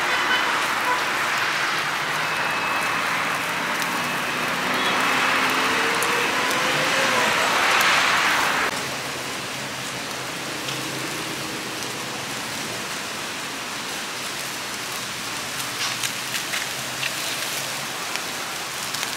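Fish sizzling in a wire grill basket over fanned charcoal: a steady hiss that drops away abruptly about nine seconds in. A few faint crackles follow near the end.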